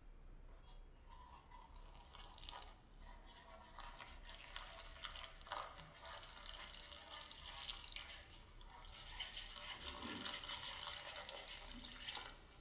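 Thin stream of water poured into a stainless steel mixing bowl of flour mix, with light clicks of wooden chopsticks stirring against the bowl; the pouring is louder in the last few seconds.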